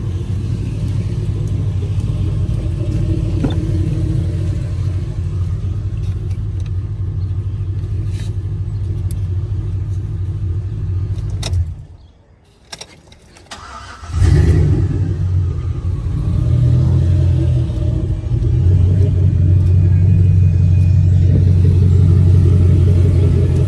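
Chevy pickup's engine idling steadily. It shuts off about halfway through, a click follows in the quiet, and a couple of seconds later it is restarted with a short surge and settles back to a steady idle.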